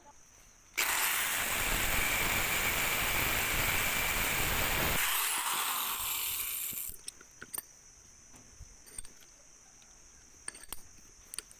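Angle grinder grinding steel for about four seconds, with a steady high whine over the grinding noise. The grinding stops about five seconds in and the motor winds down over the next two seconds. Small metallic clicks and taps follow as the workpiece is handled in the vise.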